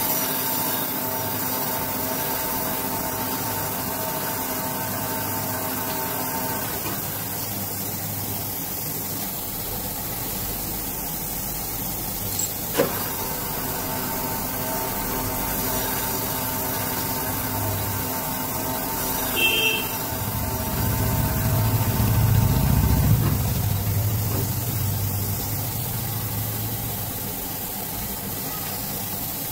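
Crankshaft grinding machine running, its abrasive wheel grinding a journal of a Swift crankshaft under a coolant stream over the steady hum of the machine's motors. There is a sharp click about 13 s in, and a louder low rumble from about 20 to 24 s.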